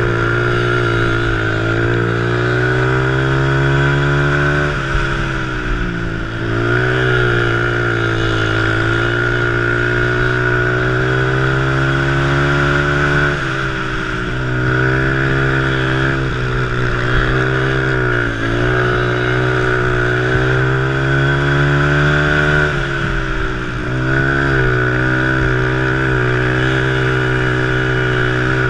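Honda ATC three-wheeler's single-cylinder engine running hard under race throttle. Its pitch holds high, then drops and climbs again several times as the rider eases off and gets back on the gas.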